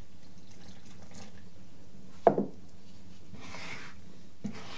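A spoon stirring wet bread dough in a bowl, with a few soft scraping strokes and one sharp knock about two seconds in.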